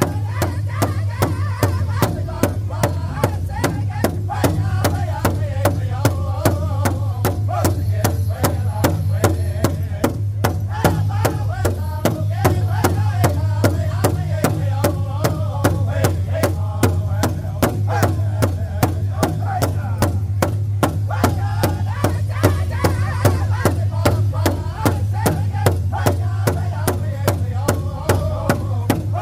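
Powwow drum group singing in chorus over a large shared bass drum that several drummers strike together in a steady, even beat.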